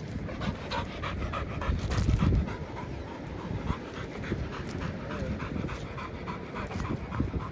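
Hunting dog panting fast and steadily close by, with a low rumble of wind on the microphone.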